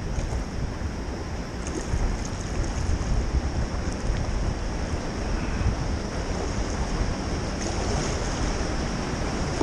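Water rushing over a small river weir, a steady wash of noise, with wind buffeting the microphone.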